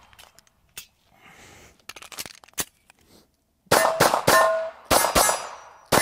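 Ruger American 9mm pistol fired in a quick string of about six shots, starting about three and a half seconds in after a lull with a few faint clicks. Steel targets ring after the hits.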